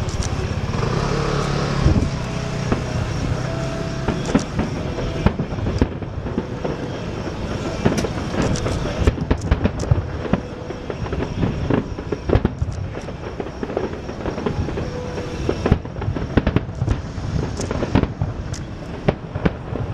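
Aerial fireworks display: a continual run of sharp crackles and bangs from bursting shells, thickening from about halfway through, with a low engine hum under the first couple of seconds.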